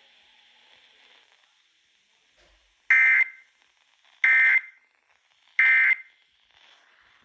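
Emergency Alert System end-of-message data tones broadcast over FM radio: three identical short, shrill electronic bursts about a second and a quarter apart, the digital code that closes the alert.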